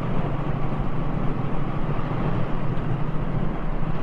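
Triumph Thruxton 1200 R's parallel-twin engine running steadily at a moderate cruise after braking down to about 30 mph, under a steady rush of wind and road noise.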